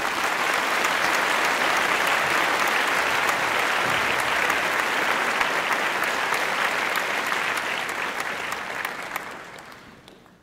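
Audience applauding, steady, then fading away over the last couple of seconds.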